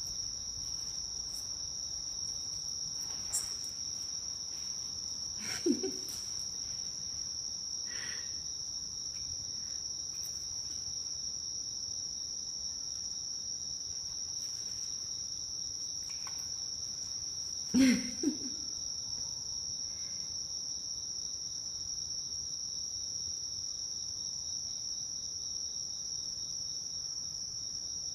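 A chorus of night insects chirping in a steady, unbroken high-pitched trill. Two brief louder sounds break in, about 6 seconds and about 18 seconds in, the second the louder.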